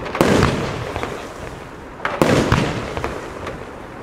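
Funke palm-effect firework battery firing: two loud bangs about two seconds apart, each trailing off into a rolling echo with some faint crackle.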